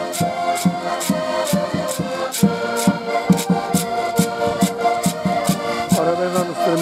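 Ensemble of diatonic button accordions playing a lively traditional tune together, with a bass drum marking a steady beat and a sharp tap sounding on each beat.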